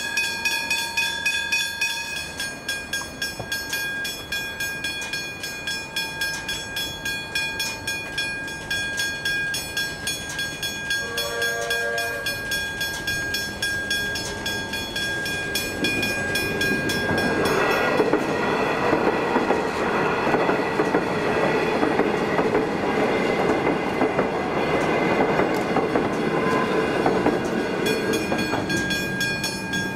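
Westinghouse Hybrid Bell (Gen 2) level-crossing bells ringing steadily with rapid strikes. A short horn blast comes about eleven seconds in, and from about sixteen seconds the rumble of an approaching electric suburban train grows and stays loud as it reaches the crossing.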